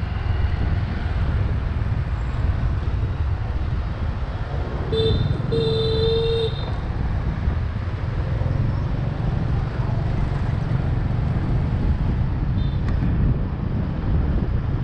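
Steady rumble of street traffic and wind, heard from a moving motorbike. About five seconds in a horn sounds, a short beep followed by a longer honk of about a second.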